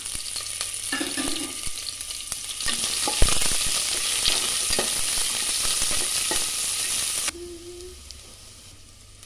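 Sliced onions sizzling and frying in hot ghee and oil in a stainless-steel pressure cooker, stirred with scraping and clicking against the pot and one sharp knock about three seconds in. The sizzling stops suddenly about seven seconds in, leaving much quieter sound.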